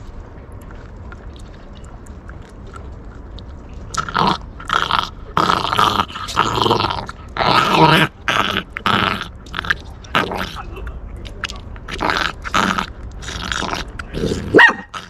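Puppy growling and snarling in a run of short, repeated growls that start about four seconds in, with a sharp bark near the end. It is guarding its bone and warning off anyone who tries to take it.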